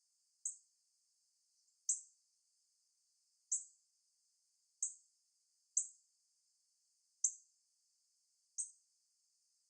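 Female northern cardinal giving short, sharp chip calls, seven single notes spaced about one to one and a half seconds apart.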